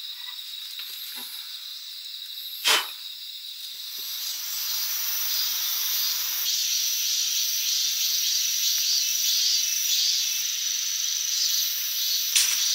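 Steady high-pitched chirring of a chorus of insects, growing louder and fuller about five seconds in. A single sharp click comes a little under three seconds in.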